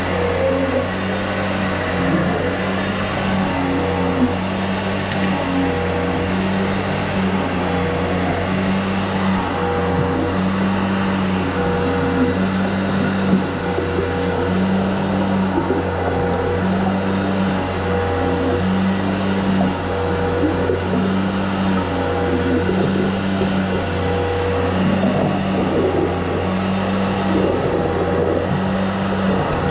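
A machine motor running steadily with a low hum, overlaid by a regular on-off pulsing about every one and a half to two seconds.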